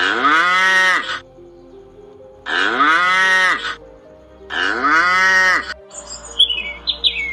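Cattle mooing three times, each moo about a second long, rising and then falling in pitch. Short, higher bird calls start near the end.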